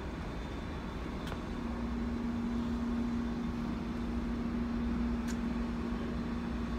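Vintage GE diesel locomotive engine running steadily, a low rumble with a steady hum, with two faint clicks.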